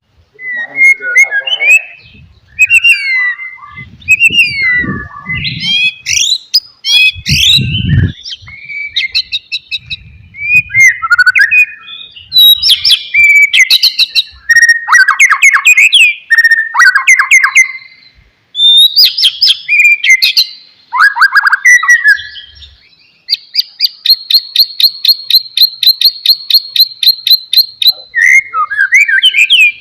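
White-rumped shama singing: a varied run of clear whistles, slurred gliding notes and chattering phrases, ending in a long fast trill of rapidly repeated notes over the last several seconds.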